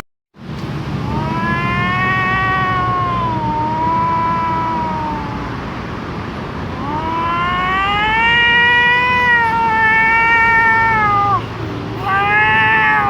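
Three long, wavering wails with a clear pitch: one of about four seconds, a longer one that rises and then sags, and a short third one near the end, over a steady low background hum.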